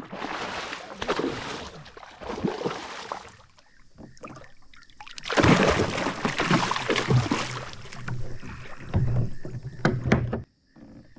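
A big hooked largemouth bass thrashing at the surface beside a kayak, throwing up water in several loud bursts of splashing as it fights the line, with a few sharp knocks near the end.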